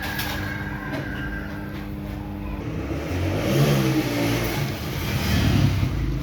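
A motor vehicle engine running, getting louder from about three seconds in, its pitch rising and falling as it revs.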